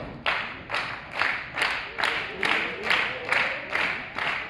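Wrestling crowd clapping together in a steady rhythm, a little over two claps a second.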